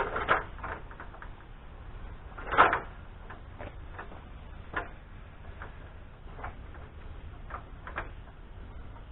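A series of irregular knocks and clicks, the loudest about two and a half seconds in, spaced unevenly and with no steady rhythm.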